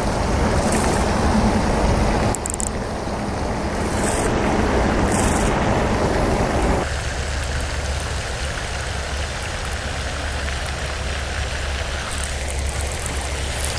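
Pond fountain splashing: a steady rush of falling water, which drops noticeably about seven seconds in.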